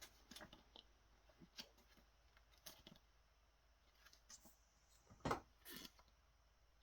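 Near silence with faint handling sounds: a few soft clicks and packaging rustles as the pager's box and its small user manual are handled, with a slightly louder knock about five seconds in.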